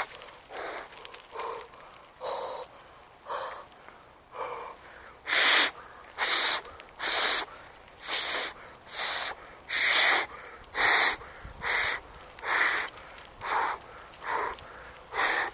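A man breathing hard and close to the microphone: a regular run of short hissing breaths, about one a second, growing louder about five seconds in.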